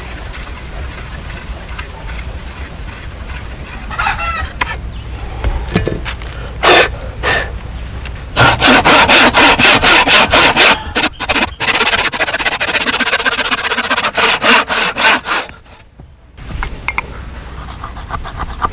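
A hand tool working wood in quick back-and-forth scraping strokes, like sawing. There are a few strokes early on, then a loud, fast run of them from about eight seconds in to about fifteen seconds in.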